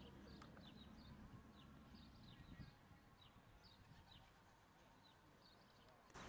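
Faint birds chirping, short repeated calls scattered throughout over quiet outdoor ambience, with a low rumble fading away over the first few seconds. A louder rushing noise cuts in right at the end.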